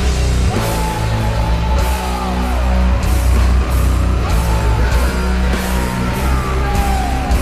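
Heavy rock soundtrack music with electric guitar, a lead line sliding in pitch over a steady heavy low end.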